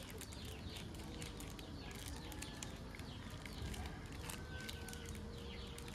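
Small birds chirping again and again in quick, short downward notes over a low steady background rumble.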